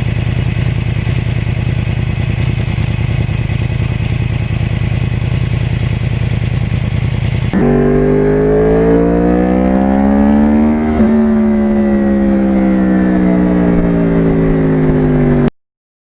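2009 Yamaha R1 crossplane's inline-four engine with a custom exhaust, first running steadily at cruising speed, then after a sudden cut pulling up in pitch, shifting about 11 seconds in, and winding down slowly as the bike slows. The sound cuts off abruptly just before the end.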